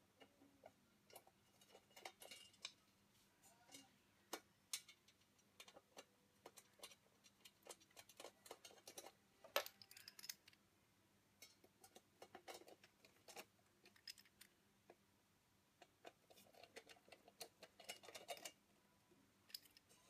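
Faint scattered clicks and light scraping of a screw being threaded by hand into a hard drive through a sheet-metal drive cage, then turned with a screwdriver, with one sharper click about ten seconds in.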